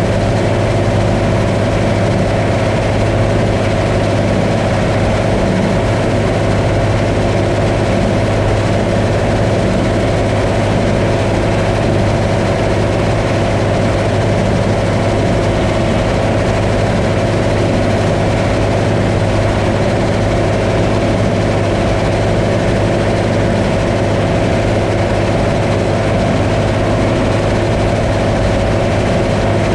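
Combine harvester running steadily: a constant low engine hum with a steady higher whine from the machinery over it.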